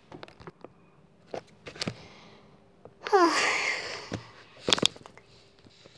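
Scattered light clicks and taps from small plastic toys and the recording phone being handled, with a short breathy vocal sound, falling in pitch like a sigh, about three seconds in.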